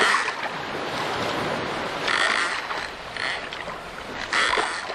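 Rowboat sound effects: a steady wash of sea water with short splashy bursts roughly once a second, as the wooden oars are pulled through the water.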